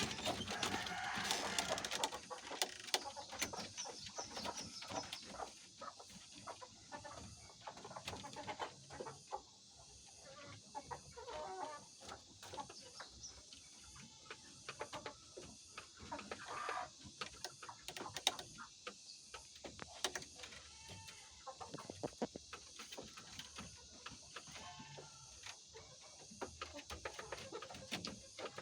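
White Leghorn hens clucking, loudest in the first couple of seconds, with further calls now and then. Many short clicks and taps sound throughout.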